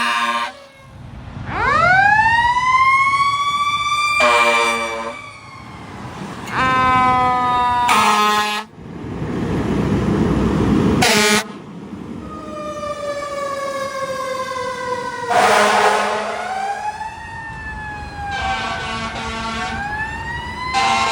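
Emergency vehicle warning system run through its sounds: a siren winding up and wailing, broken by several steady air horn blasts, then the siren sweeping down and up again in changing patterns.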